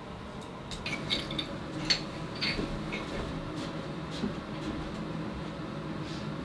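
A few light, sharp clinks and taps, like hard ceramic or glass knocking together, in the first three seconds, over a steady low hum.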